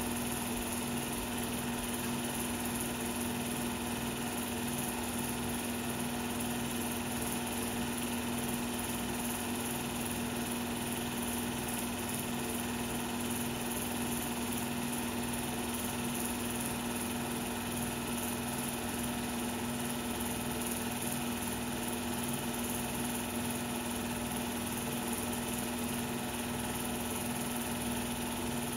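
16mm film projector running: a steady mechanical whirr with a constant hum and a faint, even flutter underneath.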